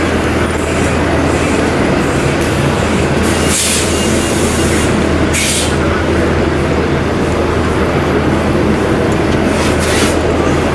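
Steady loud rumble of a subway train with a low hum running under it, and brief hisses about three and a half and five seconds in.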